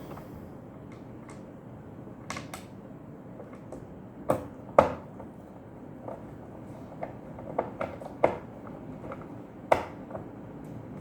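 Scattered clicks and knocks of a sandwich toaster's metal and plastic parts and tools being handled during reassembly, with two louder knocks about four to five seconds in.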